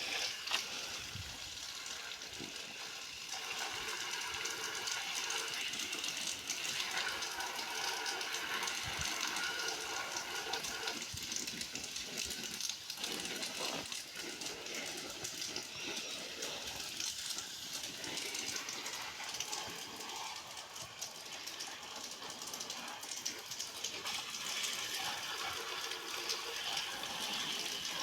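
Running water gushing and splashing steadily, with small changes in strength as the flow hits different surfaces.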